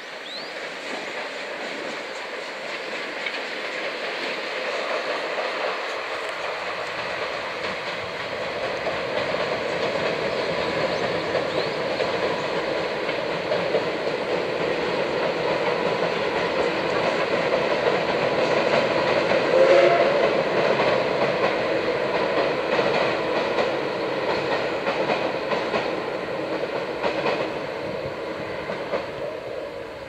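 C58 steam locomotive hauling the SL Ginga train: steady exhaust beats and running-gear and wheel noise, growing louder to a peak about twenty seconds in, then fading as the train moves on.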